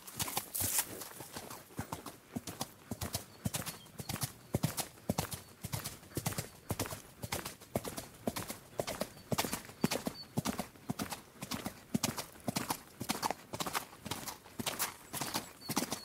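Horse galloping: a fast, continuous run of hoofbeats.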